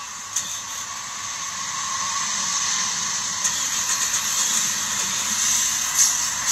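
Hiss of wind and road noise coming through an open car window as the car moves, growing gradually louder, with a few light clicks of the phone being handled.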